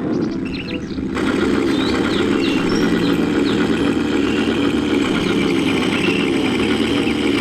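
Steady motor-like rumble.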